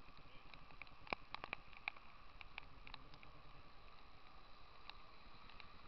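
Wet street background: a steady hiss with scattered light ticks.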